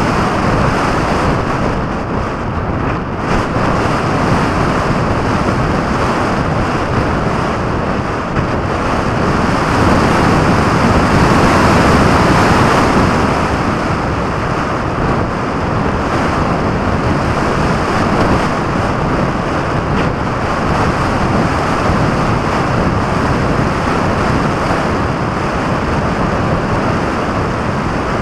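Airflow rushing over the microphone of a camera riding on a model aircraft in flight: a steady wind rush with no motor tone, swelling about ten seconds in and easing back after about thirteen.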